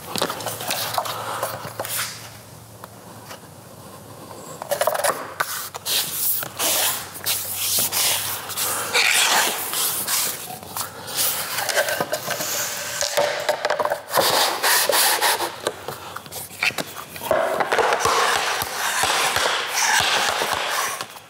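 Hybrid flooring planks being handled and slid against each other and the floor: repeated scraping and rubbing with scattered clicks and knocks as the tongue-and-groove edges are worked into the joint. There is a quieter stretch a couple of seconds in.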